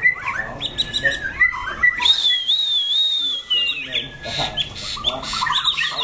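Several caged white-rumped shamas singing and calling at once: a dense mix of quick chirps and whistled phrases, with one long wavering whistle about two seconds in.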